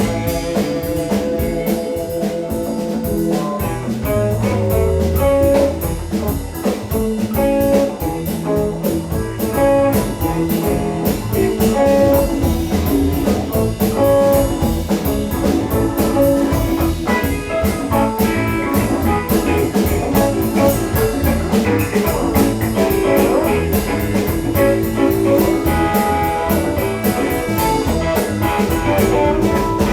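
Live band playing an instrumental jam: guitar lines over bass and a drum kit keeping a steady beat.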